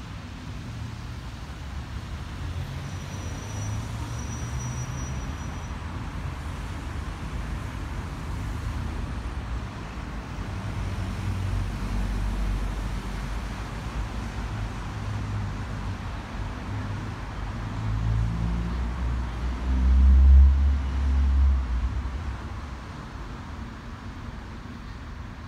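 Outdoor city background: a steady low rumble of road traffic under a light hiss, swelling louder for a couple of seconds near the end.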